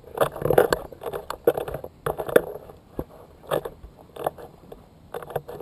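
Irregular rustling and buffeting right at a GoPro's microphone, in uneven bursts with a few sharp knocks: handling and clothing noise, or wind on the mic.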